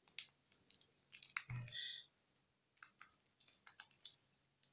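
Soft plastic clicks of TV box remote control buttons pressed one after another, irregularly, while moving across an on-screen keyboard, with a slightly louder click and handling noise about a second and a half in.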